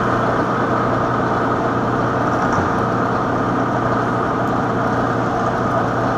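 Bridgeport milling machine running with its cutter on power feed, cutting into the curved wall of a 2-inch schedule 40 pipe: a steady machining noise with a hum beneath it. It sounds a little rough as the cutter works through the convex face of the pipe.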